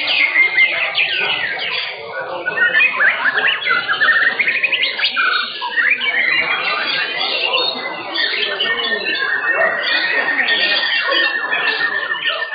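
Several white-rumped shamas (murai batu) singing at once: rapid whistled phrases, sweeping notes and chattering calls overlapping, with a long fast trill starting about eight seconds in.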